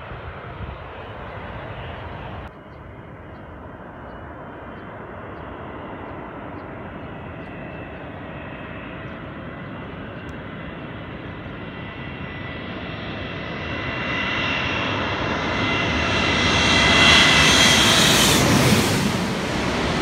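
Twin-engine jet airliner on final approach: its engine noise and high whine grow steadily louder as it comes in low, peaking as it passes directly overhead near the end. The first couple of seconds hold a more distant jet on the runway before an abrupt cut.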